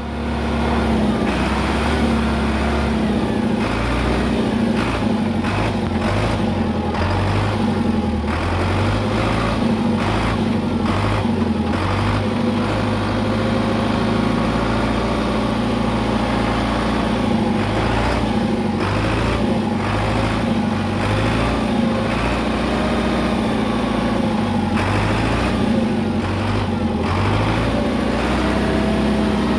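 Vintage compact tractor's engine running steadily under way, its pitch rising and falling slightly now and then.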